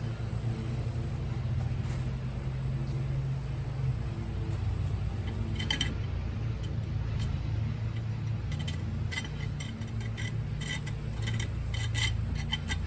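Light metallic clinks and taps of a screwdriver against a steel tire rim, scattered at first and coming more often in the second half, over a steady low hum.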